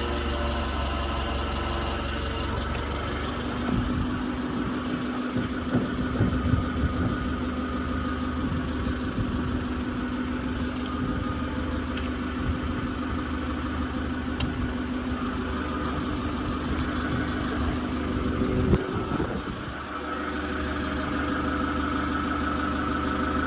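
Forklift engine running while the forklift pulls a Gleaner R72 combine's final drive off its axle plate. A steady higher hum comes in a few seconds in, with scattered metal knocks. A sharp clank near the end is followed by the engine settling back to idle as the drive breaks free.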